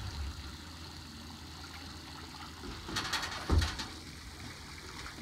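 Water rushing and splashing, with a low engine hum underneath. About three seconds in comes a louder sudden rush with a thump.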